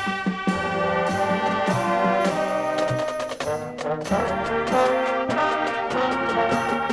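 Marching band playing, brass section carrying held chords over percussion hits; the sound dips briefly about halfway through before the brass comes back in.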